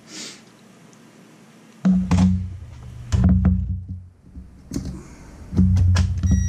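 Ridgid cordless driver's motor running in short bursts, three or four times starting about two seconds in, with sharp knocks and taps between the runs.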